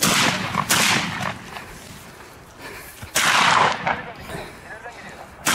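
Gunshots: four sudden loud bangs, the longest about three seconds in.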